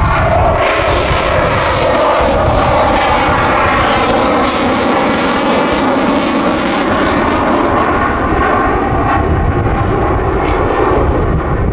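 RAF Eurofighter Typhoon's twin Eurojet EJ200 jet engines running loud and steady as the jet passes slow with its nose held high at high angle of attack. The pitch bands shift and curve slowly as it goes by.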